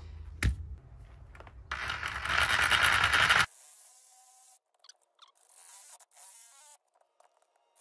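Cordless reciprocating saw cutting into the plastic case of a sealed lead-acid battery: a loud burst of cutting noise from about two seconds in, lasting under two seconds, then the sound drops away abruptly to faint scattered scratching.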